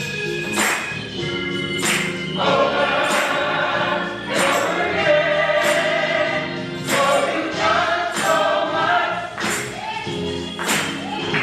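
Gospel music: a choir singing with accompaniment over a steady beat of percussion hits.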